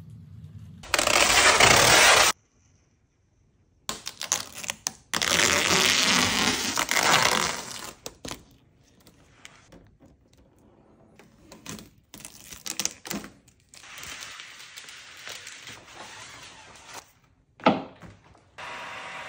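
Vinyl wrap film crackling and crinkling as it is peeled off its backing, stretched and worked onto a pickup's body panels, in several loud bursts separated by pauses, with a few clicks and a sharp thump near the end. Just before the end a heat gun starts blowing steadily.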